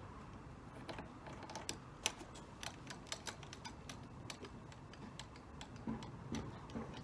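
Irregular light clicks and ticks, coming several to a second in places and thinning out near the end.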